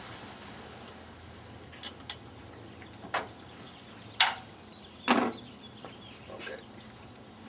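Metal bolts and hand tools clinking and knocking as they are handled and set down during engine disassembly: about six sharp, irregular clicks, the loudest about four and five seconds in.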